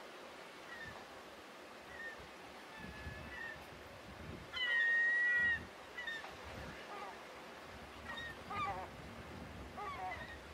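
Scattered bird calls over a faint hiss: short chirps, one longer held call about halfway through that is the loudest sound, then quick falling calls near the end.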